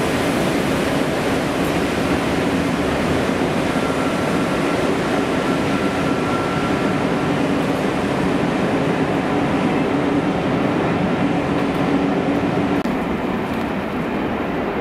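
Peppercorn A1 Pacific steam locomotive 60163 Tornado moving slowly along the platform with its train: a steady noise of steam and wheels on rail. A faint held tone sounds from about four to seven seconds in, and the sound drops a little near the end.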